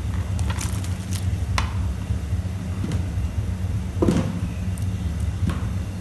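A large aluminium pot of halved corn cobs boiling over a burner: a steady low rumble, with a few short knocks and clinks as the cobs are shifted in the pot, the loudest about four seconds in.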